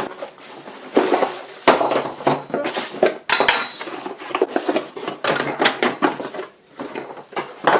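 Hard vacuum cleaner tubes and attachments clattering and knocking together as they are handled and unpacked, in a run of irregular clinks and knocks.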